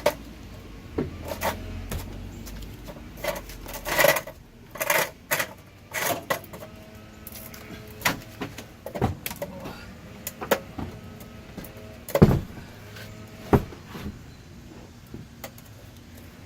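Irregular sharp knocks and clatters from working with wood and tools, loudest about four to five seconds in and again about twelve seconds in, over a low hum that stops about four seconds in.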